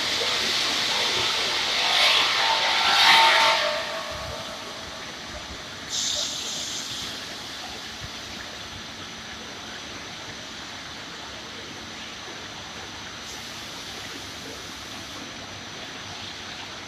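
PROSAW 460 cant-squaring saw machine running: a loud noisy surge with a few whining tones that swells about two seconds in and falls away after about four seconds, then a steady, quieter running noise with a short hiss about six seconds in.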